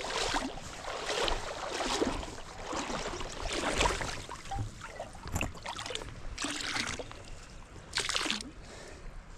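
River water splashing and sloshing in irregular bursts as a container is dipped in and filled, over the steady rush of the stream.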